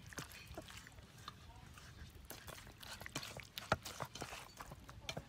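Wet squelching and irregular clicking of bare hands kneading and squeezing raw duck pieces in a seasoning marinade in a metal bowl.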